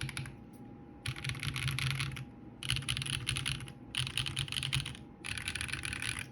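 Mechanical keyboard with Holy Panda tactile switches on a brass plate and PBT keycaps, typed on fast in four runs of about a second each with short pauses between.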